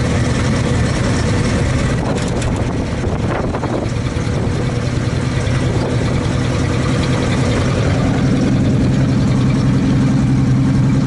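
1933 Chevrolet truck's 194-cubic-inch inline-six running under way, heard from inside the cab over tyre and road rumble on a gravel road. A short rattle comes about two seconds in. From about eight seconds in the engine's hum grows steadier and stronger.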